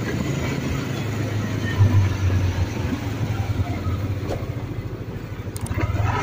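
Motorcycle engine running steadily at low speed with a low rumble, heard from the rider's seat while moving along the road.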